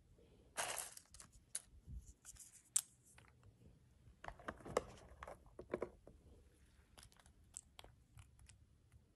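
Quiet rustling and scattered small clicks as pumpkin seeds and dried cranberries are sprinkled onto a bowl of salad greens, with a brief crinkly rustle about half a second in.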